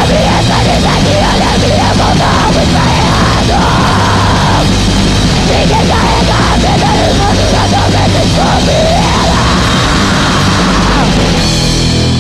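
Loud hardcore punk music: a dense, full band with shouted vocals, which drop out about a second before the end.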